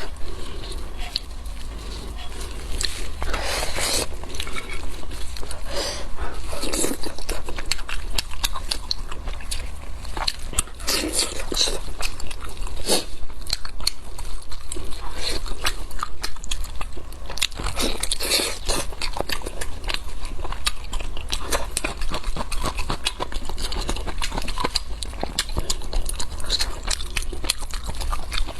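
Close-miked eating of spiced sheep's head: continuous chewing, biting and wet smacking, with crackly crunches that come in stronger clusters every few seconds. A steady low hum runs underneath.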